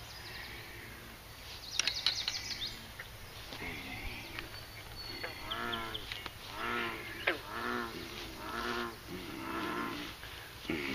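Bullfrog calling from the pond: a run of about five low, arching croaks roughly a second apart, starting about halfway through.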